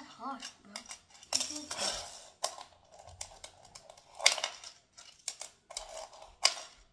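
Fingerboard clacking on a laminate floor as tricks are attempted: the small deck and its plastic wheels snap, flip and land in a run of sharp clicks, with a short rolling rattle about a second and a half in. The loudest clacks come about four seconds in and near the end.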